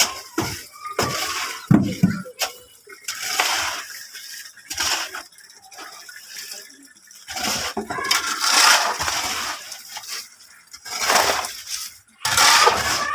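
Wet concrete being tipped and worked by hand, in repeated splashing, scraping bursts of about a second each with a few knocks.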